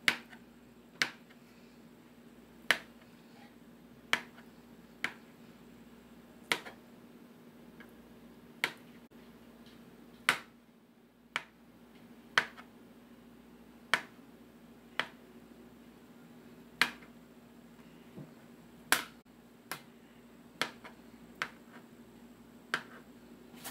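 Kitchen knife chopping boiled eggs, the blade striking a plastic cutting board in sharp, irregular knocks about once a second.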